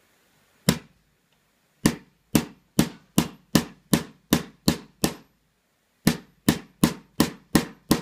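Hammer striking the spine of a thin utility-knife blade set in the seam of a hard plastic Master Lock 410 lockout padlock body, driving it in to split the case. Sharp metal-on-metal blows: one on its own, then two quick runs of about three a second with a short pause between, loud enough to hurt the ears.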